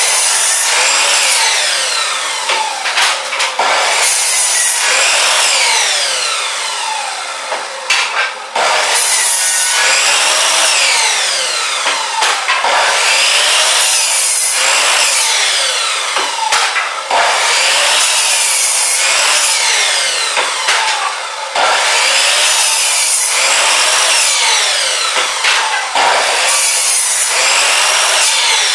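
A saw cutting through wood in repeated passes, each lasting about four to five seconds with brief breaks between them.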